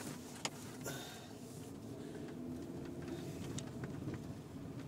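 Car engine and tyre noise heard from inside the cabin while driving slowly on a snow-covered road, with a couple of faint clicks in the first second.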